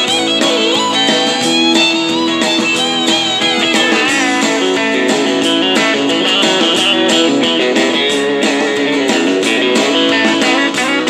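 Outro music: a recorded country-style song with strummed and plucked guitars, playing steadily.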